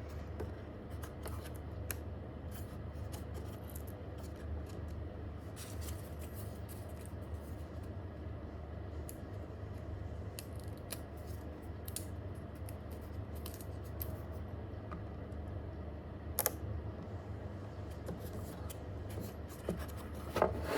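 Scattered soft clicks and rustles of small hand work: paper backing peeled off self-adhesive foam pieces and the pieces pressed onto a panel, over a steady low hum. One sharper click comes about sixteen seconds in.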